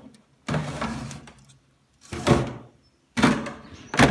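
Wooden inspection board being slid in and out of a beehive's bottom board, three scraping slides of wood on wood, the first and last drawn out.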